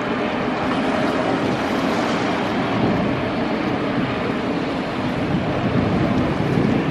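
Steady rushing noise of jet airliner engines on landing and approach, mixed with wind buffeting the microphone.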